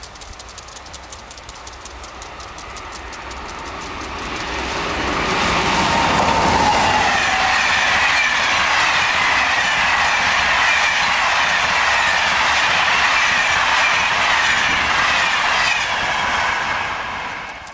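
A long passenger train of coaches passing at speed, the rumble and hiss of wheels on the rails with a clickety-clack. It swells about four seconds in, stays loud while the coaches go by, and fades near the end.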